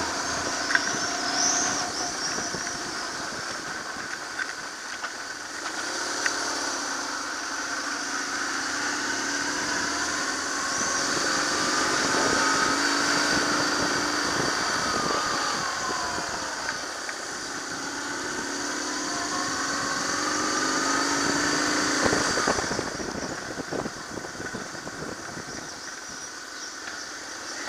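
BMW R1100GS boxer-twin motorcycle engine running at low road speed, its revs rising and falling several times as the rider accelerates and eases off, with two louder stretches where it pulls harder.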